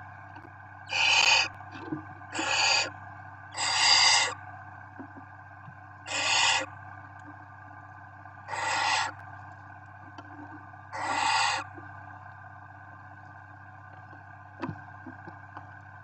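Barn owl chicks giving their harsh hissing begging calls, six long hisses spaced about two seconds apart that stop a few seconds before the end. A steady low electrical hum runs underneath.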